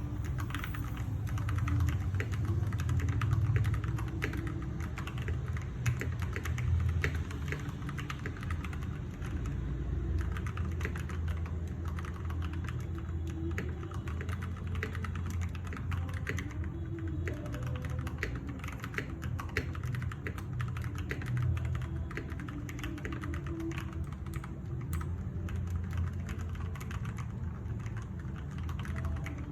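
Continuous typing on a Ganss H98T mechanical keyboard with Gateron Pro Yellow linear switches: rapid, irregular keystroke clicks, over a steady low hum.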